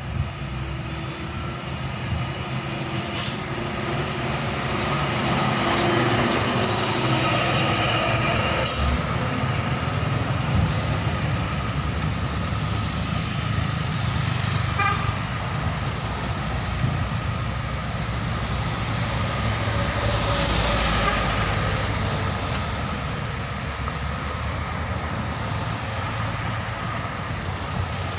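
Road traffic: heavy diesel trucks' engines running while cars drive past, a steady drone that swells twice as vehicles go by. There are two short sharp hisses a few seconds in.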